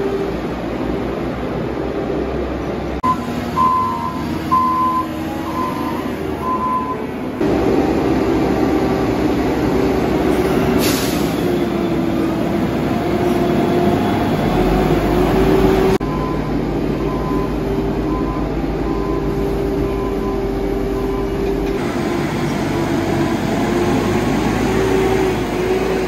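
Diesel engines of a Caterpillar wheel loader and a loader tractor running under load while pushing and packing chopped corn silage. A backup alarm beeps repeatedly a few seconds in, and the engine sound shifts abruptly several times.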